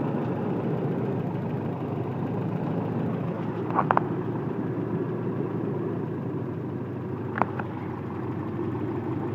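Toyota 22RE 2.4-litre four-cylinder fuel-injected engine idling steadily, with its TE1 and E1 diagnostic terminals jumped so the idle sits low on base timing, about 5 degrees. A few sharp clicks about four seconds in and one more near the end.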